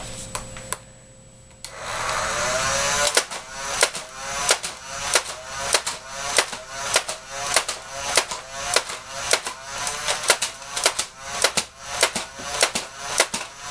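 Nerf Raven dart blaster firing: its motor starts whirring about two seconds in, then darts go off in a rapid string of sharp shots, about two a second, with the motor's pitch dipping and rising again after each shot.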